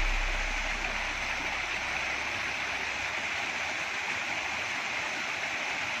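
Steady rush of water spilling down the ledges of a stepped cascade water feature, an even splashing noise with no music over it.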